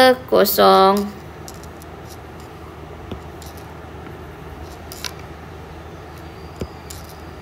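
A woman's voice drawing out a word in the first second, then a steady low hiss with three faint ticks spread over the rest.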